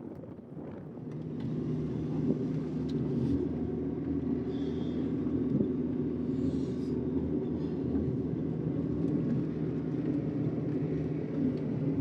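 A motor vehicle's engine running steadily with a low, even hum that grows louder about a second in.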